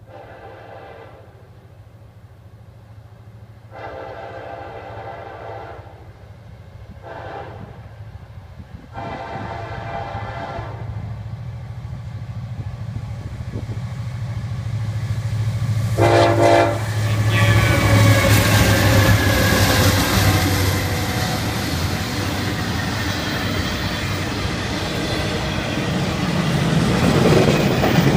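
Diesel freight locomotives sounding their multi-chime horn for a grade crossing: two long blasts, a short one and another long one, then a short toot as they draw near. The lead engines then pass close with a loud engine rumble, followed by intermodal trailers on flatcars rolling by with steady wheel clatter.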